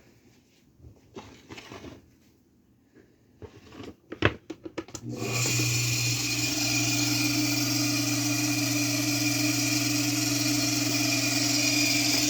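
Clicks and knocks of handling, then about five seconds in the Kawamoto N3-136SH well pump's electric motor switches on and runs steadily, with a strong hum over a broad whirring noise. This is the abnormal noise the seller reports from the running motor.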